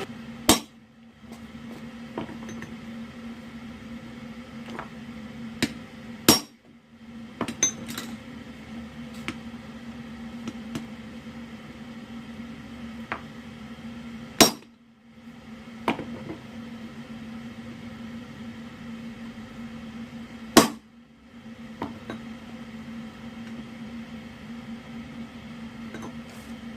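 Hammer blows on a blacksmith's flatter set on the hot steel of an axe blade, smoothing and flattening it on the anvil: four loud metallic strikes spaced several seconds apart, with lighter taps between them. A steady hum runs underneath.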